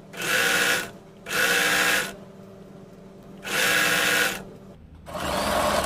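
Electric household sewing machine running in four short bursts of under a second each, with pauses between. It is stitching a cord inside a folded fabric strip to make piping.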